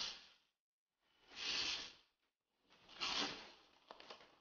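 Adhesive tape being pulled off the roll, two short noisy strips of about half a second each, followed by a few faint clicks near the end.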